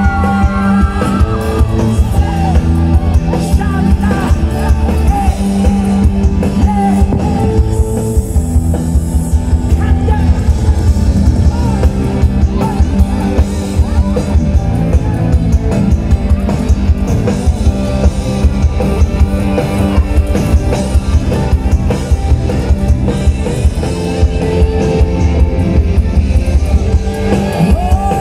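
Live rock band playing loud through a concert sound system, with drum kit and guitar, heard from within the audience. A singer's voice comes in near the start and again near the end.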